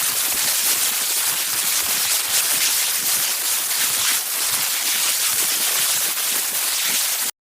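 Electric crackle sound effect: a steady, dense crackling hiss of sparking electricity that cuts off suddenly near the end.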